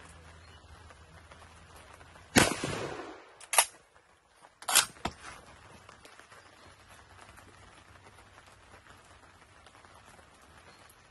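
A single rifle shot from a Schmidt-Rubin G1911 firing 7.5×55mm Swiss, about two seconds in, with a long fading echo. It is followed by a shorter sharp crack about a second later and two more in quick succession about a second after that.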